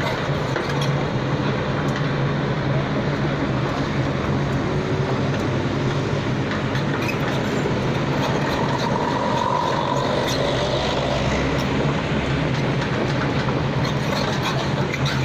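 Excavator's diesel engine running steadily with a constant low hum, and a faint higher tone rising and falling briefly near the middle.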